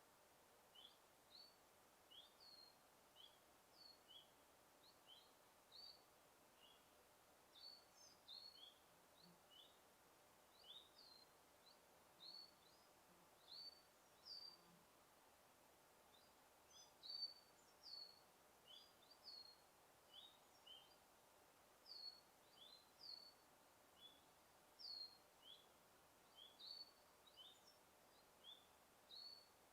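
Birdsong: many short, high chirps, one or two a second, over a faint steady hiss.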